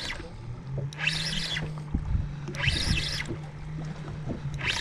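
Sounds aboard a fishing boat on the water: a steady low hum, with a wash of water slapping against the hull about every second and a half and a few dull knocks.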